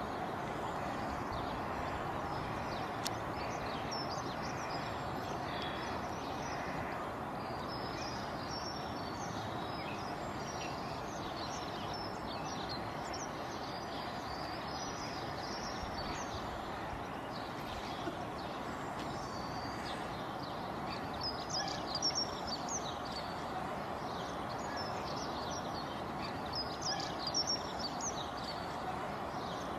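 Outdoor street ambience: a steady rushing background noise with many small birds chirping high and quick, the chirps busiest after the middle and near the end.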